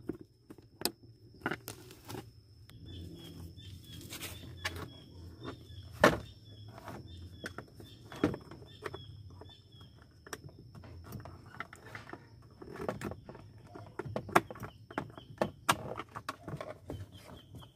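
Scattered hard plastic clicks, knocks and rattles as the lower dashboard trim panel under a Nissan Grand Livina's steering column is unclipped and pulled away by hand. Faint high chirps repeat about twice a second in the background for several seconds.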